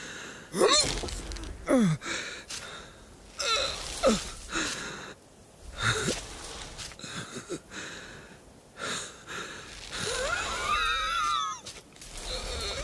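A sheep character's wheezing, effortful breaths and grunts, several of them sliding down in pitch, then a longer wavering cry about ten seconds in.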